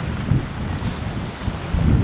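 Wind buffeting the microphone in irregular low, rumbling gusts.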